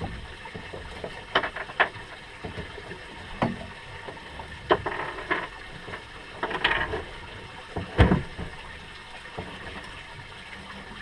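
Scattered knocks and clatter with some watery sloshing, from bait and gear being handled at a boat's stern; a heavier thump comes about eight seconds in.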